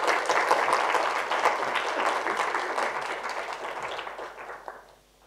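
Audience applauding, the clapping fading away over the last couple of seconds.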